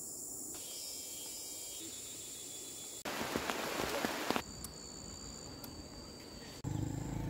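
Outdoor ambience with steady high-pitched insect buzzing. About three seconds in it cuts to a louder rain-like hiss with a few clicks for about a second and a half, then back to the insects. A low pitched sound starts near the end.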